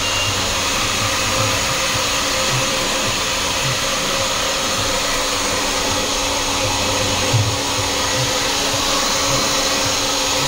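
Salon hair appliance running with a steady whir and blowing hiss, unchanging throughout.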